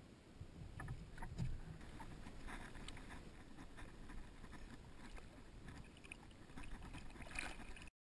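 Low wind rumble on the microphone, with scattered light knocks and small water splashes as a pike is lowered over the side of a small boat and released. The sound cuts off abruptly near the end.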